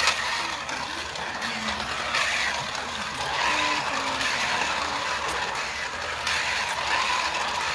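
1:43-scale slot cars running laps on a plastic slot-racing track: their small electric motors whirr and the cars rattle along the track in a steady, continuous racket.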